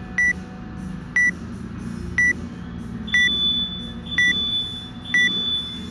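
Workout countdown timer beeping, one short high beep each second as it counts down to the start. A steady, higher-pitched tone joins about halfway through.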